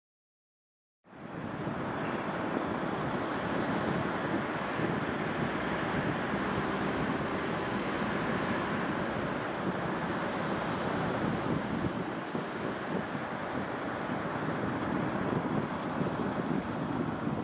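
Silent for about a second, then a steady low rumble of distant engine noise sets in and holds.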